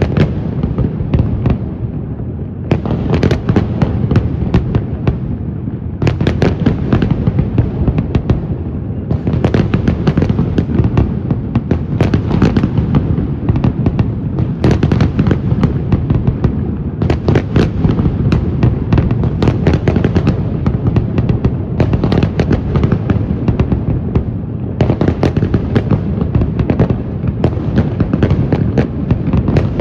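Fireworks display: a dense, near-continuous barrage of bangs and crackling, easing briefly every few seconds before building again.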